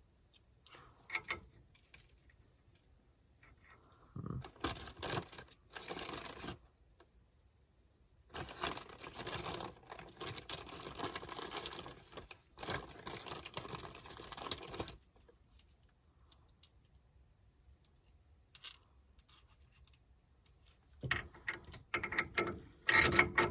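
Small metal washers and hardware clinking and rattling as they are handled, in several bursts of a few seconds each.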